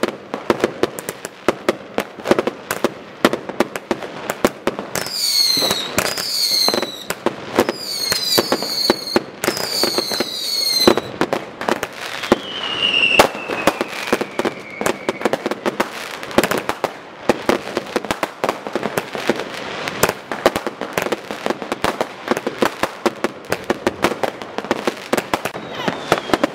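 Fireworks going off nonstop: rapid bangs and crackling from many firecrackers. Several short falling whistles come between about five and eleven seconds in, and a longer falling whistle follows around thirteen seconds in.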